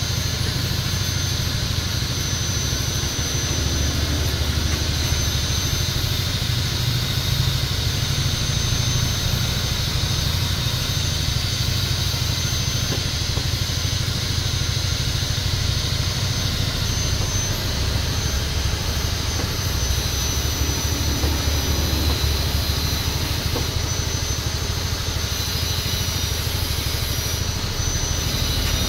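Steady mechanical running noise: a loud low hum with a thin, constant high whine over it, unbroken throughout.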